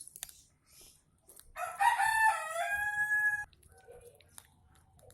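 A rooster crowing once: a call of about two seconds that steps in pitch and ends on a long held note.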